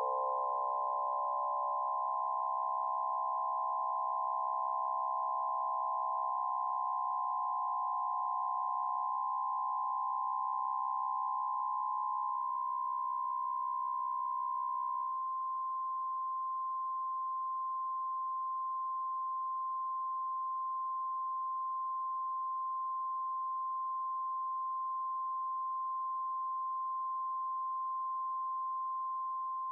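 A chord of steady synthesised sine-wave tones, slightly detuned against each other for a faint dissonance. The pitches drop out one by one from the lowest upward over about the first fifteen seconds, leaving a single high tone held on its own.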